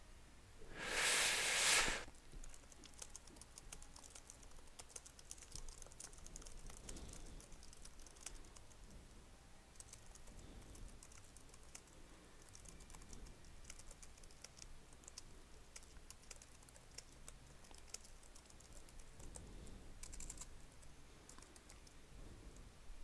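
Typing on a Gateway laptop's keyboard: a long run of quiet key clicks. About a second in there is a louder rush of noise lasting about a second.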